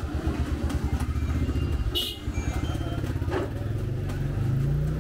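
A small engine running nearby with a low, rapid putter, over the faint sizzle of deep-frying oil. There is a sharp metallic clink about two seconds in.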